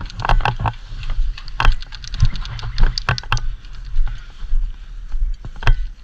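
Footsteps of a person walking, with irregular clicks and scuffs from gear over a steady low rumble on a body-worn microphone.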